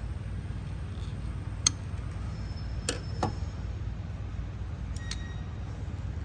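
Four sharp clicks, a few with a brief metallic ring, as a tool cuts and works into the insulation of an acid-damaged car wiring harness, over a steady low hum.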